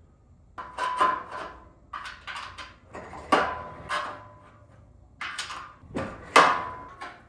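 Steel parts of a home-gym power rack being knocked and fitted together: an irregular run of sharp clanks, several with a brief metallic ring.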